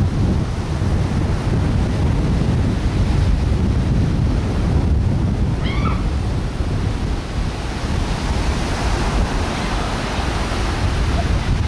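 Wind buffeting the camcorder microphone in a steady low rumble, over a wash of surf. About six seconds in, a single short high-pitched animal cry.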